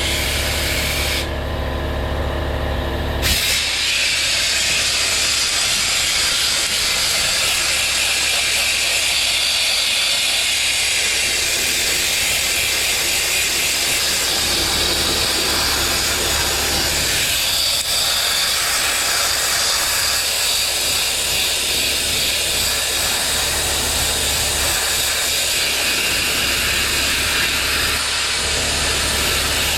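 Sandblaster blasting abrasive against the inside of a steel tractor wheel rim: a loud, steady hiss of compressed air and grit, with a low hum underneath.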